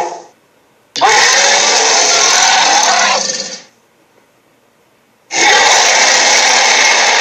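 Loud, harsh sound-effect bursts separated by silences: one fades out at the start, another starts sharply about a second in and fades after roughly two and a half seconds, and a third starts about five seconds in.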